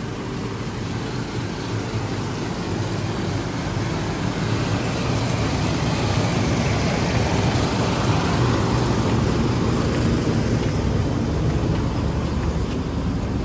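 Generator engine running steadily: a low, even hum that swells somewhat in the middle and eases a little near the end.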